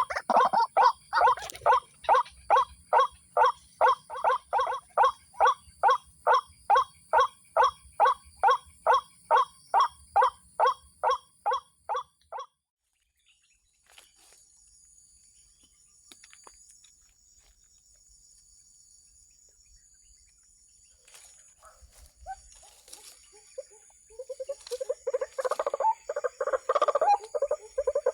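White-breasted waterhen calls, a hoarse note repeated evenly about two and a half times a second, which stop abruptly about halfway through. Near the end the calling starts again, denser and jumbled.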